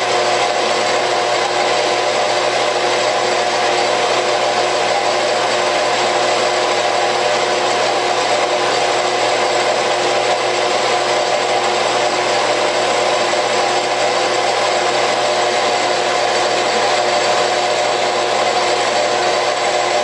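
Metal lathe running at a raised speed, a steady whine of several held tones over a machining hiss. A homemade cone-cutting attachment is fed slowly through a light finishing cut on aluminium round stock.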